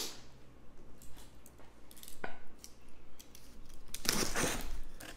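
A box cutter slicing the packing tape on a cardboard shipping box: a short rasping cut about four seconds in, after a few light handling clicks.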